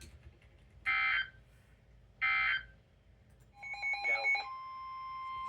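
Emergency Alert System SAME data bursts: two short electronic squawks about a second and a half apart, closing the three-burst end-of-message code. A brief warbling burst follows, and then, about four and a half seconds in, a steady single-pitched alarm tone starts and holds: the NOAA Weather Radio warning alarm that announces the next warning.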